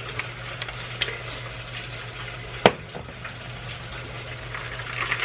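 Steady sizzle of food frying over a low hum, with a few light ticks and one sharp click about two and a half seconds in.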